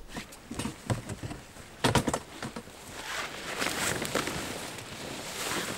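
Camping gear being handled: scattered knocks and a cluster of loud thumps about two seconds in, then rustling.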